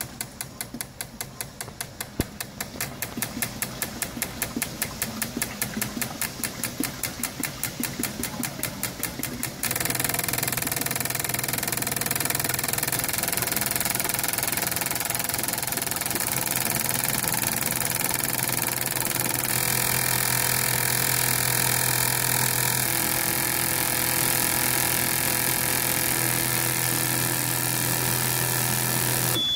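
Eight decapped fuel injectors pulsing on an ultrasonic cleaner and flow bench during a dynamic flow test. For about the first ten seconds they tick in quick even clicks, about five a second. Then they switch abruptly to a louder, steady buzzing hiss of rapid pulsing and spray.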